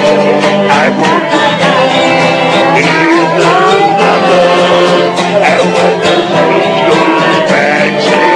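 Lively dance music played on accordion and guitar.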